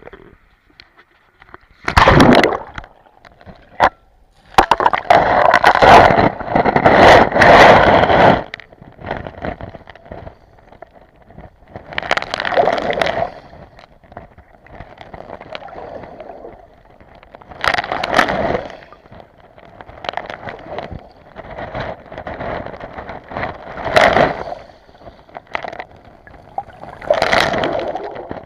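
Sea water sloshing and bubbling around a camera held underwater, coming in loud irregular surges with quieter gaps between them.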